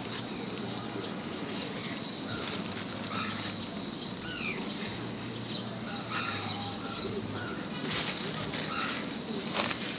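Small birds chirping in short calls throughout. Near the end a plastic bag of paratha crinkles sharply as it is handled and shaken.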